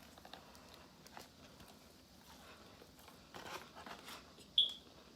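Faint chewing and soft crunching of a crispy fried chicken sandwich: small scattered mouth clicks, a little denser about three and a half seconds in. A short, sharp high-pitched squeak about four and a half seconds in is the loudest sound.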